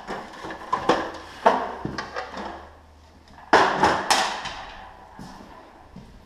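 A series of sharp clanks and rattles of metal hardware while the drive chain of a garage door opener is being adjusted, loudest about three and a half to four seconds in, with a faint low hum in the middle.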